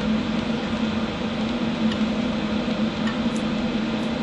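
HHO (hydroxy) gas welder running at about 5 amps with its torch flame lit: a steady hum with an even hiss.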